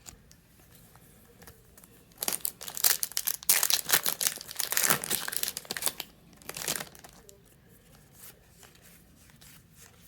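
Foil wrapper of a Yu-Gi-Oh! booster pack being torn open and crinkled by hand, a run of sharp crackles and rips lasting about five seconds from around two seconds in.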